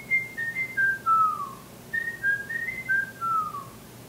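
Whistled tune: clear single notes stepping up and down in two short phrases, each ending in a slow downward slide.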